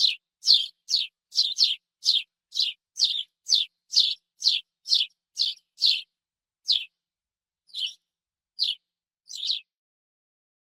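Sparrow chirping: a run of short, sharp chirps, about two a second, thinning after about six seconds to a few spaced chirps that stop shortly before the end.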